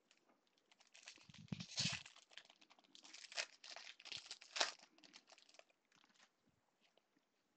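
Foil wrapper of a 2017 Bowman baseball card pack being torn open and crinkled by gloved hands. The crackling comes in uneven spells from about a second in and dies away about a second and a half before the end.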